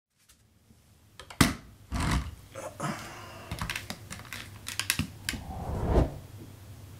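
Bare feet stepping onto and shifting on a flat bathroom scale on a hard floor: a sharp knock about a second and a half in, then a string of light clicks and taps. A low steady hum runs underneath.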